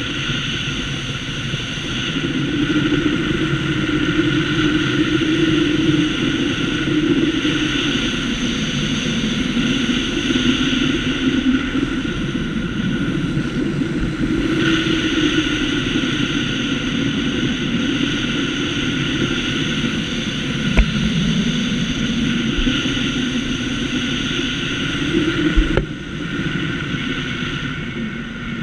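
A steady engine-like drone that wavers slightly in pitch, with two sharp clicks in its second half.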